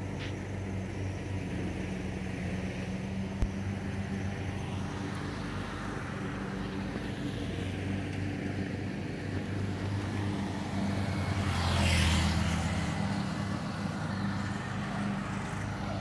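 Grass-cutting machine's engine running steadily with a low hum, swelling louder for a couple of seconds about twelve seconds in.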